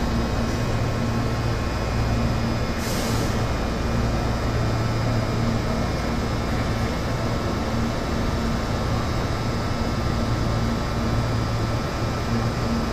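Meitetsu electric train standing at the platform, its equipment giving a steady hum, with a short hiss of air released from the brakes about three seconds in.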